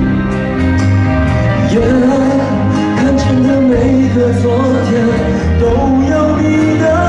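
Live band performance of a Mandarin pop ballad: vocalists singing the melody over electric and acoustic guitars and a steady bass line.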